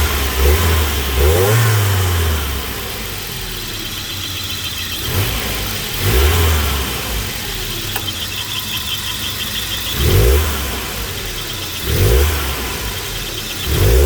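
Volvo 940 turbo's four-cylinder engine idling and being blipped with the throttle, a series of short revs that rise and drop back to idle. The owner hears a tiny bit of hesitation in it and suspects the ignition system.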